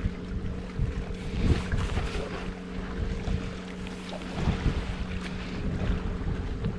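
Wind rumbling on the microphone over a steady low motor drone, with scattered irregular knocks.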